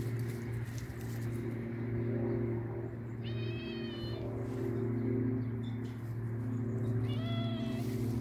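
Angora cat meowing twice: a call of about a second roughly three seconds in, and a shorter one about seven seconds in. A steady low hum runs underneath.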